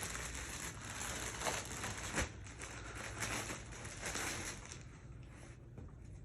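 Packaging crinkling and rustling as a piece of clothing is unwrapped, busiest for the first few seconds, then dying down.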